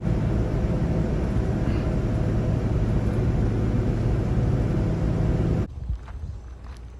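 Steady, loud vehicle rumble with a low engine hum, cutting off abruptly about five and a half seconds in; after that only faint clicks.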